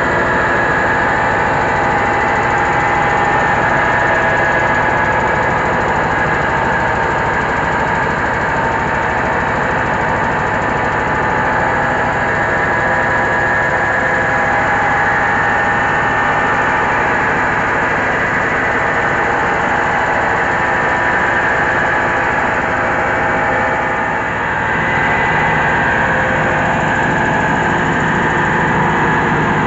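Diesel-driven mobile rice huller running steadily at working speed, its engine and milling machinery running together.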